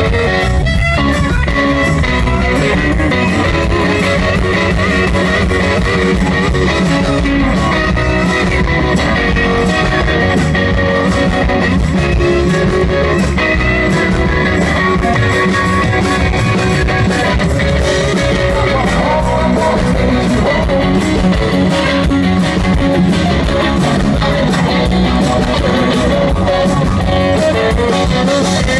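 Live rock band playing an instrumental passage, with electric guitar and bass guitar.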